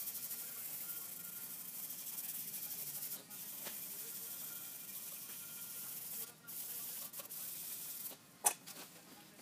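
Small brass wire brush scrubbing a cast-iron lathe part in quick back-and-forth strokes, a steady scratchy rasp that breaks off briefly twice. A sharp click near the end is the loudest sound.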